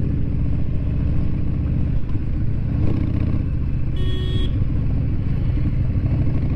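Harley-Davidson V-twin engine running steadily at low road speed under the rider, heard from on the motorcycle. A short beep sounds about four seconds in.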